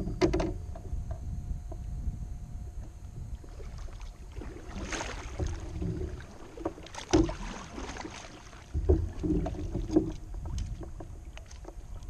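Kayak on the water: swishing and splashing water with several sharp hollow knocks against the hull, over a steady low rumble of wind on the microphone.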